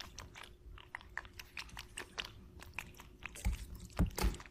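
Rabbit chewing a cherry tomato: quick, wet crunching bites, several a second, with a few louder thumps near the end.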